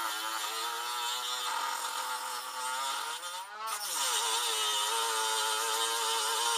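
Handheld rotary tool running at speed, its bit grinding at the weld that holds the baffle inside a Harley-Davidson Street 750 silencer. The whine is steady, then bends up and drops sharply a little past halfway as the bit bites under load. It then picks back up and runs slightly louder.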